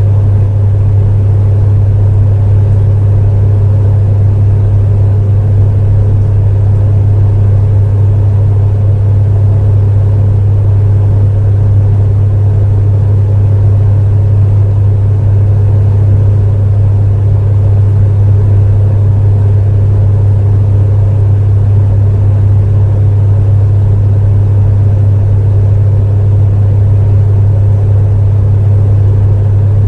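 Space heater running steadily: a strong, unchanging low hum with a softer rushing noise over it.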